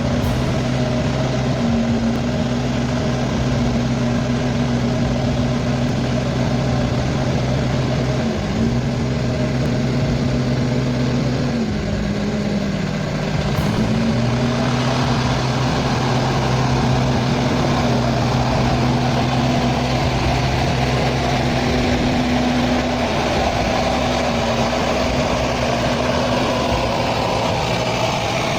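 Truck engine running steadily, its pitch dipping briefly twice and then coming back up.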